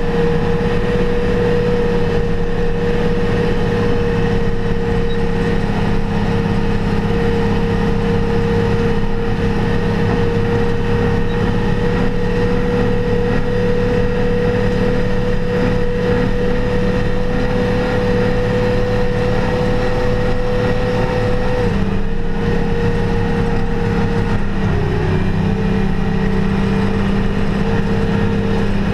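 New Holland TM165 tractor's diesel engine running at steady revs as it drives and ploughs snow, heard from inside the cab, with a steady whine over the engine note. Near the end the pitch drops slightly, twice, as the revs ease off.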